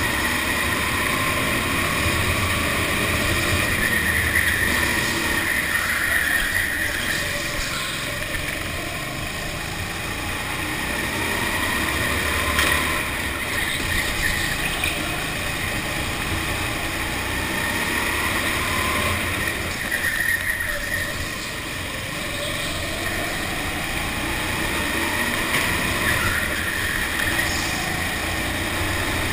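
Go-kart engine running hard, heard close up from on board the kart, its pitch climbing and then falling away again every several seconds as the kart speeds up and slows around the laps.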